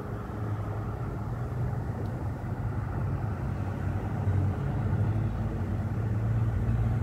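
Steady low outdoor rumble of city ambience as a storm comes in, its loudness swelling a little after the middle.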